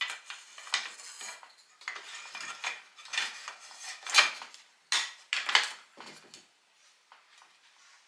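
Wooden spoons and spatulas clattering against each other and the sides of a ceramic utensil crock as they are put in, a run of irregular clacks that dies down to a few faint ticks about six and a half seconds in.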